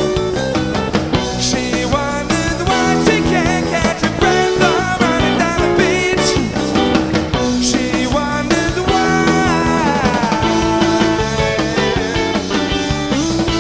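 Indie rock band playing a song live, with electric guitar over bass and drums.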